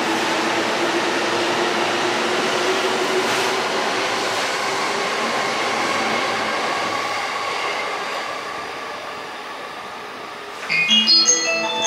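Electric train running on the rails: a steady rumble with a faint motor whine that eases off over the last few seconds. Near the end a bright electronic chime melody starts.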